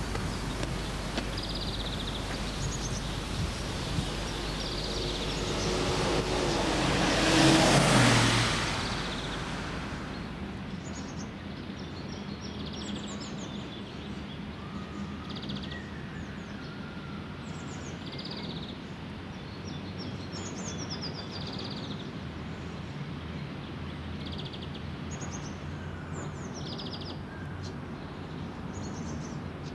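Outdoor ambience with steady background noise: a car passes, swelling to its loudest about eight seconds in and then fading. After that, small birds chirp repeatedly.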